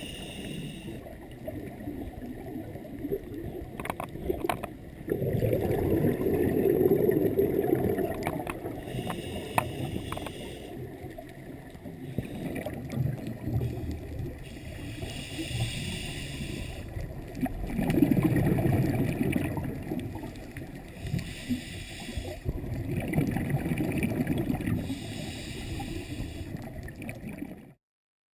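Scuba regulator breathing heard underwater: a short hiss on each inhalation alternating every few seconds with a low bubbling rumble of exhaled bubbles. The sound cuts off suddenly near the end.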